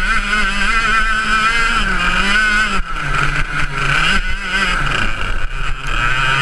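Ice kart's engine running hard, heard from on board, its pitch rising and falling as the driver accelerates and eases off through the corners. The revs dip briefly a few times.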